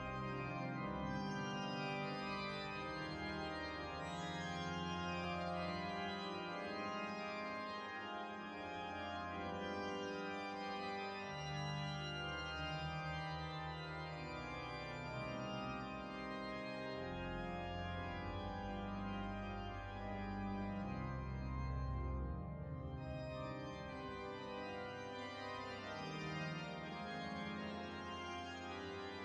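Church organ playing slow, sustained chords over deep bass notes, the harmony changing every few seconds.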